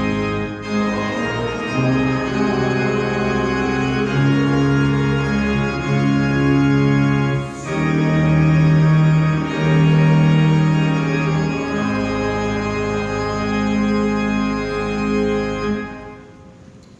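Organ playing slow, sustained chords that change every second or two, the last chord dying away about a second before the end.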